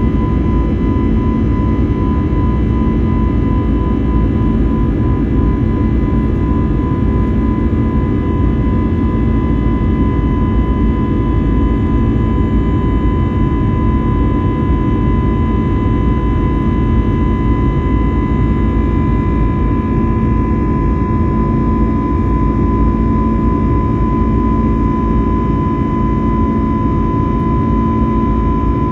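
Steady drone of an Airbus A321neo's CFM LEAP-1A jet engines and cabin air heard from inside the cabin, with several steady whining tones over it, the highest and clearest a thin whine.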